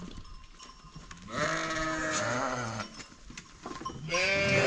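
Sheep bleating: two long, quavering bleats, the second louder and starting near the end.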